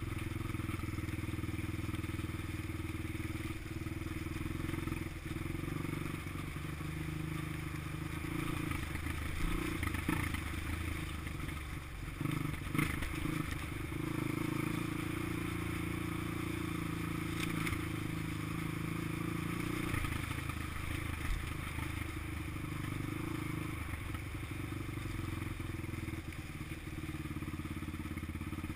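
Honda XR200 dirt bike's air-cooled single-cylinder four-stroke engine running steadily on the move. Its note dips and picks up again a few times around the middle, with a few brief knocks.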